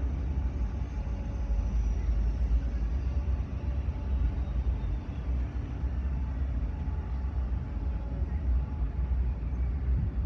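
Low, steady rumble of heavy machinery running.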